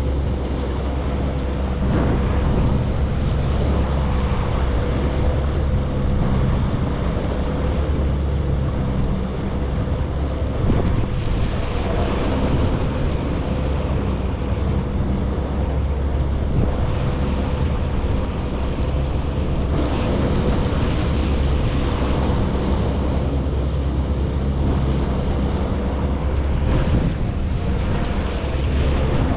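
Jet ski running steadily at speed, its engine a constant drone with a steady whine, over rushing water and wind buffeting the microphone.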